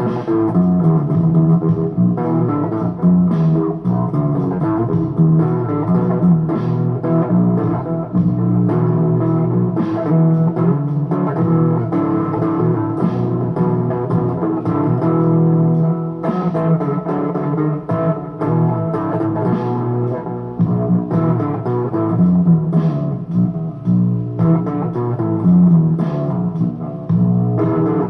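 Electric guitar playing blues, a continuous run of picked notes and chords with no pauses.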